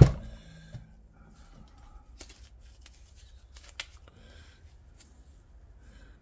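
A sharp knock with a short ringing tail at the start, then a few light clicks and handling noise as the Honda GL1000 Goldwing's aluminium final-drive housing is lifted and turned upside down over a plastic jug.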